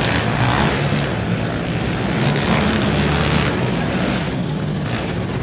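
Several racing quad (ATV) engines running hard on a motocross track, their revs rising and falling.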